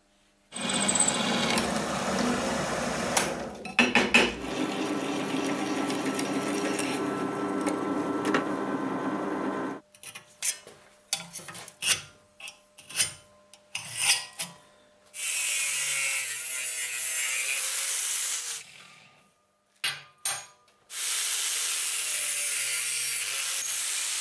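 A power tool running on steel for about nine seconds, then a run of short scraping strokes as a scriber marks lines on steel along a ruler, then an angle grinder grinding a steel bar held in a vise in two runs of a few seconds each.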